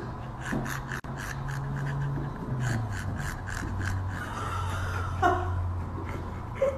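A husky panting hard through a wide-open mouth, in fast, raspy, gasping breaths, several a second. About five seconds in comes a short sound that drops in pitch.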